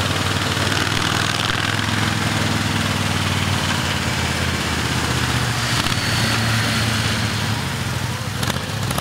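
1979 Moto Guzzi Spada's air-cooled V-twin running steadily at low speed as the heavily laden touring bike rolls past, its note shifting briefly a little past halfway.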